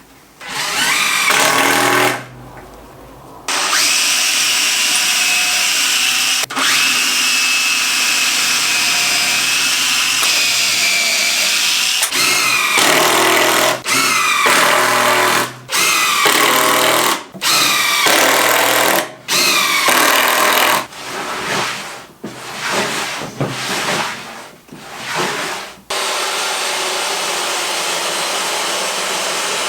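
Power drill running in repeated stop-start bursts, each start with a rising whine as the motor spins up. There are a few longer runs first, then a quick string of short bursts, typical of driving screws during assembly. A steady, even motor noise takes over near the end.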